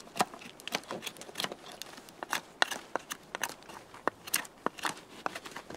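Wooden branch door handles being carved with a knife: short, sharp cuts and scrapes at irregular spacing, several a second.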